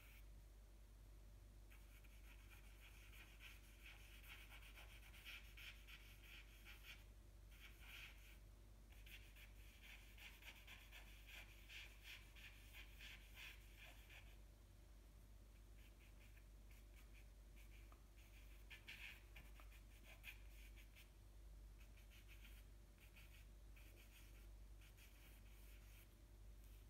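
Faint scratching of a charcoal stick on paper in quick, short strokes as dark pupils are shaded in. The strokes are dense for the first half, then come more sparsely.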